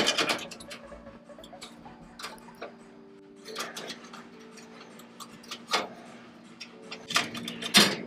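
Scattered sharp clicks and light knocks of small metal parts and tools being handled, over a faint steady hum.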